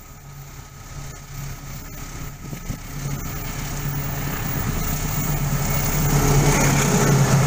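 GE CC206 diesel-electric locomotive's engine running with a steady low hum, growing louder as the locomotive approaches hauling a passenger train.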